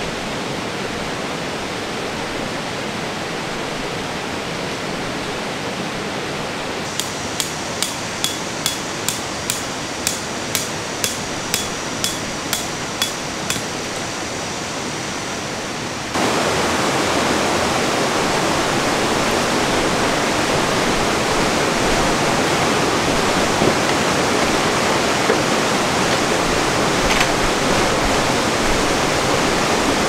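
A valley stream rushing steadily. About seven seconds in, roughly fifteen sharp ringing knocks follow at about two a second for some six seconds. Past the middle the rush of water suddenly gets louder.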